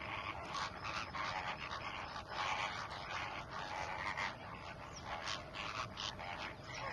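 A flock of flamingos calling: a continuous jumble of short, overlapping calls, several a second.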